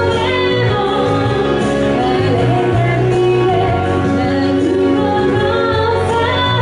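Woman singing a song live into a handheld microphone, her voice gliding between notes over a backing of steady low held notes.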